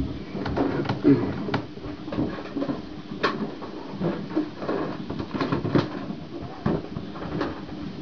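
Inflated rubber balloons being handled: irregular taps, rubs and knocks of the rubber as they are picked up and held.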